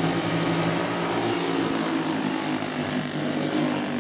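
A pack of dirt racing karts with small single-cylinder flathead engines running hard around the track, a steady buzzing drone of several engines at once.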